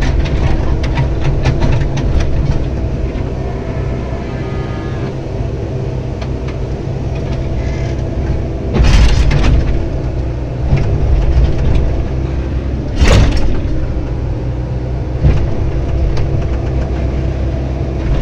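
Komatsu PC70-8 excavator's diesel engine running steadily with a low, even hum, now back to normal after a new backup sensor cured its hard starting. Rapid clicks come in the first couple of seconds, and there are two short louder bursts of noise about 9 and 13 seconds in.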